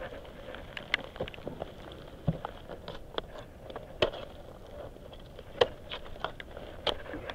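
Ice axes being planted in hard frozen snow and climbing gear being handled, with carabiners clinking on the rope. The sound is scattered, irregular sharp knocks and clicks.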